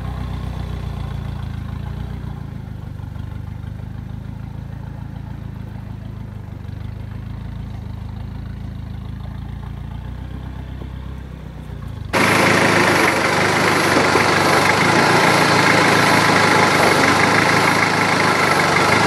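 Toyota Hilux 3.0 turbo diesel engine running at low revs as the truck crawls through a deep rut, a low rumble. About twelve seconds in, the sound suddenly becomes louder and harsher, with a strong hiss over the engine.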